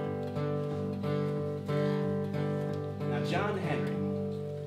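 Acoustic guitar played in slow strummed chords that ring on, a new stroke roughly every half to two-thirds of a second. A brief wordless vocal sound wavers up and down about three seconds in.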